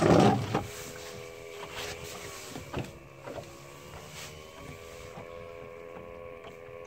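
A brief loud rustle at the start, then a steady motor hum with a slight waver in pitch, broken by a few light knocks.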